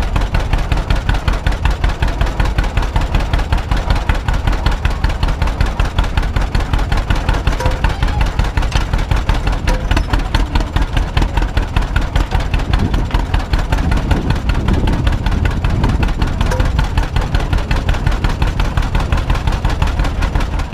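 1952 John Deere B tractor's two-cylinder engine running steadily, with a rapid, even pulsing exhaust beat.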